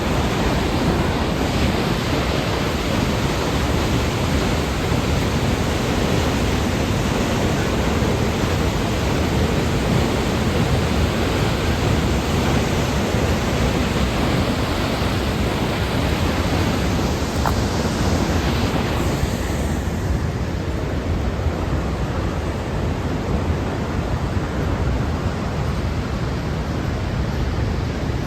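Steady roar of Elk Falls' rushing water, a loud, even hiss. The sound turns duller about twenty seconds in as its highest part drops away.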